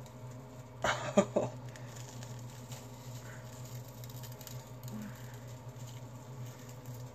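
Faint crackling of charcoal peel-off masks being pulled slowly off the skin, over a steady low hum, with a brief loud burst about a second in.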